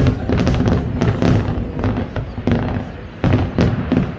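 Fireworks display: a rapid, dense series of bangs and crackles over a continuous low rumble, with a few louder reports standing out, one of them about three seconds in.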